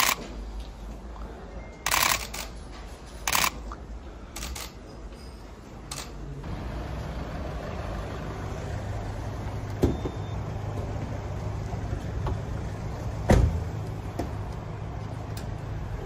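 Camera shutters clicking in several short bursts, then a Mercedes-Benz van's engine running steadily, with two thumps over it, the second the loudest.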